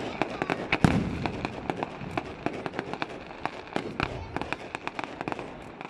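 Fireworks display: a rapid string of sharp cracks and pops from bursting shells, with one loud, deeper boom about a second in.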